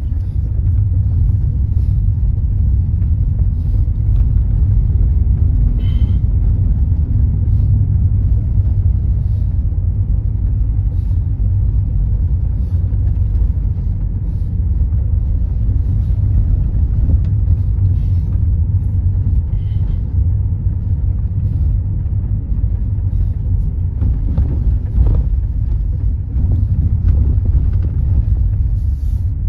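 Steady low rumble of a car's engine and tyres heard from inside the cabin while driving on a rough concrete lane, with a few faint knocks from the bumpy surface.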